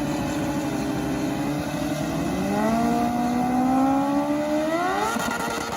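Racing motorcycle engine, a MotoGP-style sound clip, revving. Its pitch dips, then climbs steadily and jumps higher again about five seconds in, as it accelerates.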